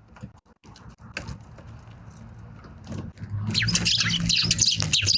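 Eurasian tree sparrows chirping: scattered light ticks at first, then a loud, rapid run of many overlapping high chirps about three and a half seconds in, over a low hum.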